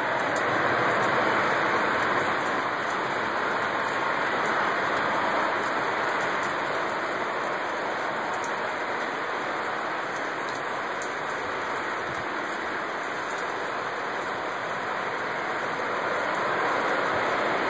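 A loud, steady rushing noise outside, from a source the listener cannot identify, heard during a thunderstorm with no wind. It swells a little in the first few seconds, eases off in the middle and rises again near the end.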